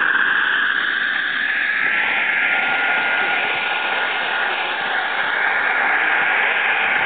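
Wren 44 miniature gas-turbine engine of a radio-controlled model jet running at take-off power as the model rolls down the runway: a steady jet hiss with a high, steady whine.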